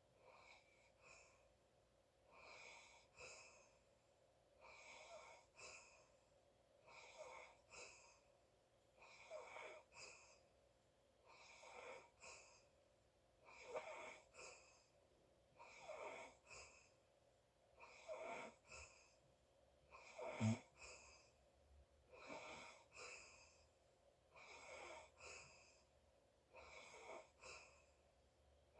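A sleeping person's faint, regular breathing, about one breath every two seconds, each with a short whistling note that falls in pitch. One breath about twenty seconds in is louder.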